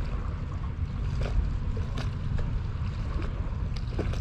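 Wind buffeting the microphone in a constant low rumble, with small scattered splashes of seawater lapping against the breakwater.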